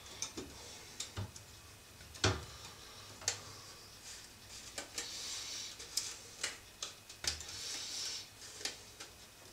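Irregular small clicks and knocks from a photographic enlarger being handled and adjusted, with soft rustling between them.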